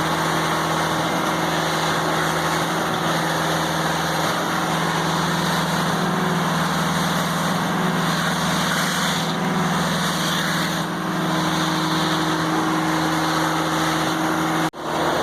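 An engine running steadily at an even speed, with a steady low hum; the sound cuts out for an instant near the end.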